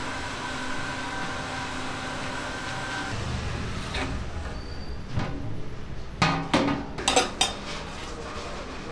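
Aluminium lid and pot of a biryani handi clanking as the lid is lifted off and a metal spoon goes into the rice: several sharp metal clanks between about six and seven and a half seconds in. A steady hum runs under the first three seconds.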